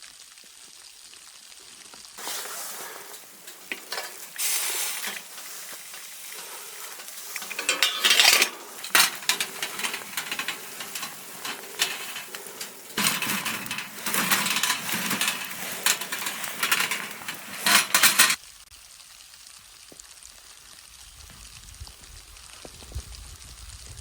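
Food sizzling in a pan, with stirring and the clink of a metal utensil against it. The sizzling starts about two seconds in, swells and falls several times, and cuts off suddenly about three-quarters of the way through.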